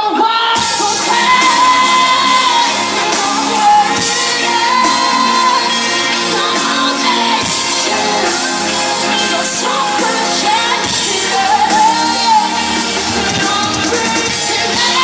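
Live rock band with a female lead singer performing in a large hall, recorded from the audience. The full band comes in about half a second in, under the sung melody.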